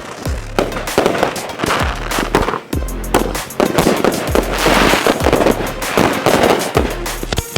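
Fireworks crackling and popping in rapid, dense bursts, mixed with background music that has a steady repeating bass.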